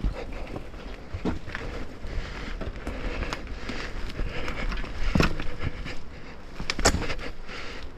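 Downhill mountain bike riding over a rough trail: tyres crunching and crackling over dirt and rocks with the bike rattling, and sharp knocks about four times as the wheels strike rocks or roots.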